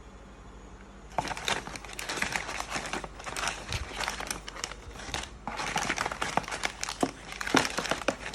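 Plastic packaging crinkling and rustling as it is handled, starting about a second in, with a brief pause about two-thirds of the way through.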